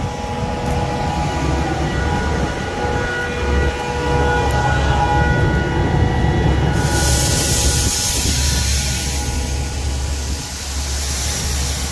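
Air seeder outfit running: a steady low drone from the tractor and the Bourgault air cart, with a whine in several tones. About seven seconds in, a loud rushing hiss comes up over it and the whine fades.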